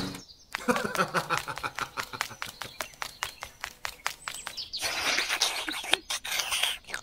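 A run of irregular, sharp clicks and ticks, several a second, with a brief hiss about five seconds in.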